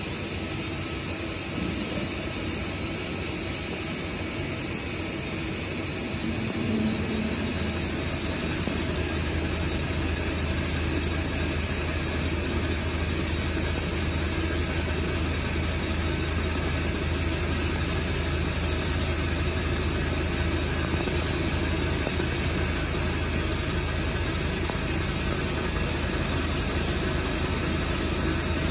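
CNC horizontal boring mill running with a steady mechanical drone and whine, growing louder with a deeper hum about six seconds in.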